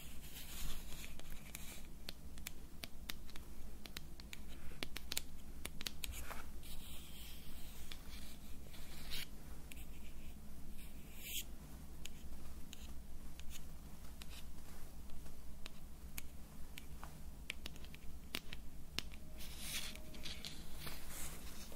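Close-miked ASMR hand sounds: scratching with many small, irregular clicks and taps.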